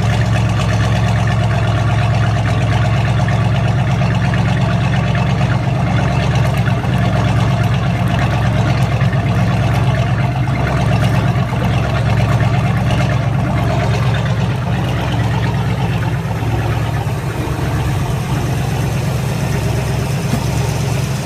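Inboard V8 of a 1971 Correct Craft Barracuda idling steadily out of the water, cooled by a garden hose, its exhaust leaving through the transom outlets with cooling water splashing out.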